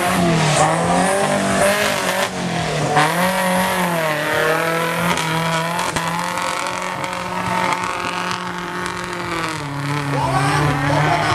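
Off-road jeep engine revving, its pitch rising and falling over the first few seconds. It then holds a fairly steady note for several seconds before rising and falling again near the end.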